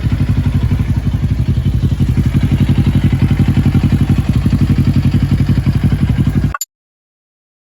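Bristol Bobber 650 motorcycle engine idling with a steady, even pulse through the exhaust. It cuts off abruptly about six and a half seconds in, leaving silence.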